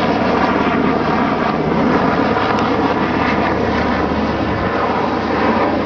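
Loud, steady rotor and engine noise of a rescue helicopter hoisting a person off a rooftop.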